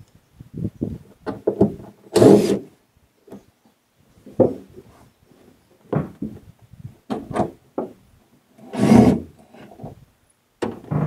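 Scattered knocks and bumps, with two short, louder scrapes about two seconds in and again near nine seconds: a boat's wooden floor panel being pried loose and handled.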